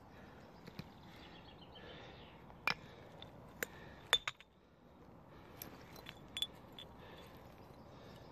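Glass bottles clinking against each other and against stones as they are handled in the dirt. There are several sharp, ringing chinks, the loudest about four seconds in, then a few lighter taps a little later.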